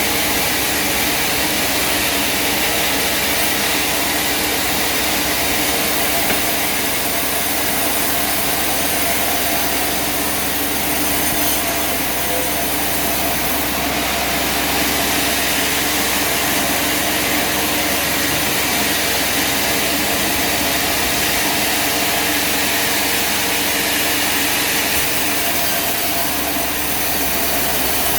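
Machinery running steadily with an even hum and hiss, no pauses or changes in pitch.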